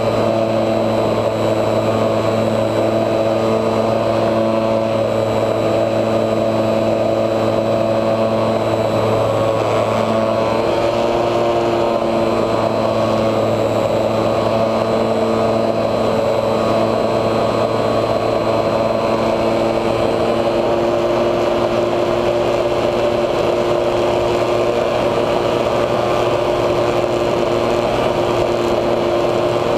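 HobbyZone Super Cub RC plane's electric motor and propeller running steadily in flight, heard from a camera on board, the whine shifting slightly in pitch a couple of times.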